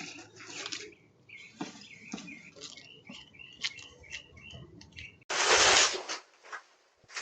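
Small birds chirping: a quick run of short, repeated chirps. About five seconds in, a sudden loud rush of noise cuts in for under a second and is the loudest thing.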